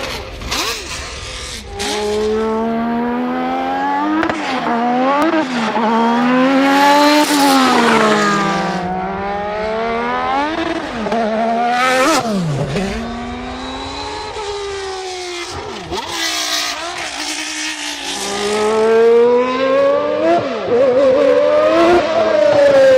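Formula One car engine at high revs, its pitch climbing again and again through the gears and falling steeply on lifts and downshifts.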